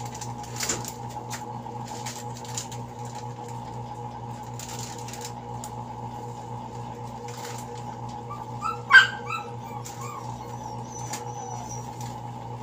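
Plastic snack packets crinkling as they are handled and hung on a wire grid rack, over a steady low hum. About nine seconds in, a short, loud yelp.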